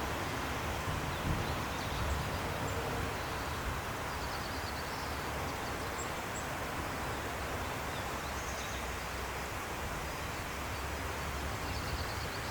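Steady outdoor ambience: an even hiss with a low rumble underneath, and faint small-bird chirps and short trills now and then.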